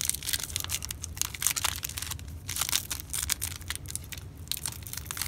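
A 2015 Score football card pack's foil wrapper being torn open and crinkled by hand: a dense, irregular run of crackles and rips.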